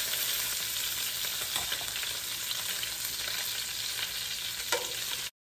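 Cooked bone-in chicken thighs sizzling in hot oil in a skillet as they are lifted out with tongs: a steady frying hiss with a few light clicks. It cuts off abruptly near the end.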